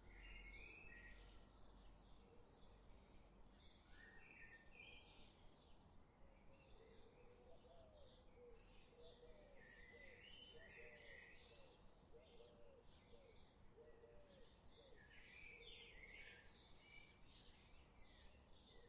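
Faint birdsong ambience: many small birds chirping in quick, overlapping high notes, with a run of lower, short hooked calls in the middle.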